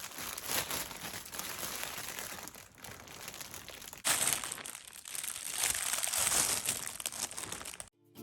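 A baby crinkling and crumpling something with his hands, a continuous crackly rustle. It gets louder about halfway through and cuts off abruptly near the end.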